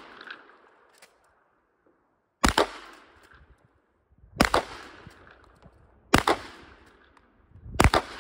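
Four shots from a Winchester 1897 pump-action shotgun firing slugs, about two seconds apart, each with a quick echo.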